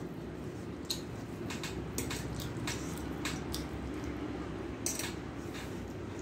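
Eating rice and curry by hand from a steel plate: wet squishing and smacking clicks from fingers mixing the food and from chewing, scattered irregularly over a steady low background hum.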